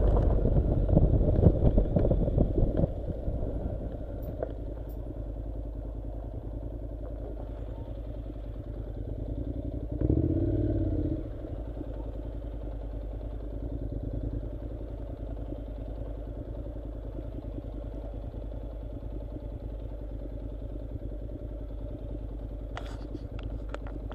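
Honda NC700 motorcycle's parallel-twin engine running at low speed on a gravel track, loud and rough with road noise for the first few seconds, then running steadily and quietly. A short louder spell comes about ten seconds in.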